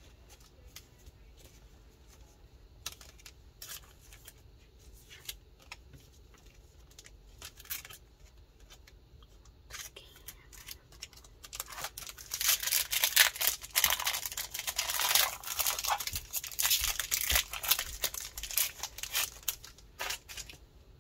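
Sparse light clicks and taps of cards and packaging being handled, then, about halfway through, several seconds of loud crinkling and tearing as a foil Pokémon booster pack wrapper is torn open.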